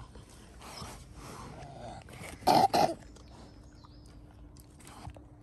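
Two short, loud vocal sounds in quick succession from a dog, about halfway through, over otherwise quiet background.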